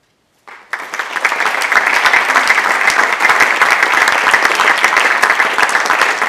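An audience applauding: dense clapping starts suddenly about half a second in and then goes on steadily.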